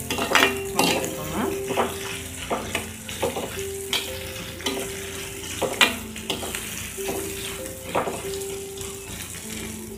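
Chopped onions, curry leaves and spices sizzling in hot oil in a clay pot, stirred with a metal spatula that scrapes and knocks against the pot again and again. The onions are being fried until golden.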